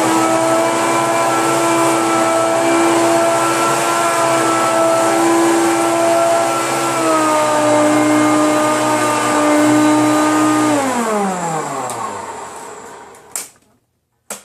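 Hoover PowerMax Supreme upright vacuum cleaner running loud with a steady motor whine. Its pitch steps up slightly at the start and dips a little partway through. Then it is switched off and winds down with falling pitch over about two seconds, and two sharp clicks follow near the end.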